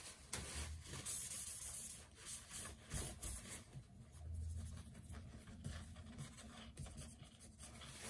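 White cloth wiped over the battery inside an opened 2012 MacBook Pro to clear off dust: faint, irregular rubbing and scuffing strokes.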